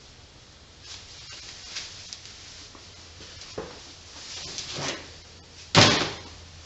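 Hands handling engine parts and tools during a teardown: soft scattered rustles and knocks, with one louder clatter or scrape near the end.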